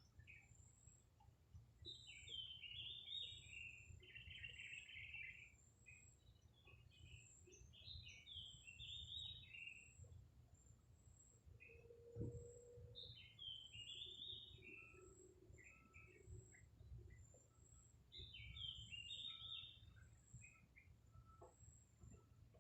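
Small birds chirping in about five short phrases of quick, high notes, with a low steady rumble underneath and a single knock about twelve seconds in.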